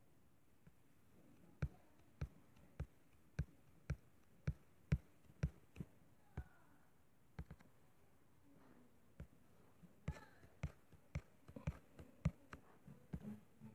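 A series of short, sharp taps, some about two a second and a denser irregular cluster near the end: fingers tapping a tablet's touchscreen, picked up by the tablet's own microphone.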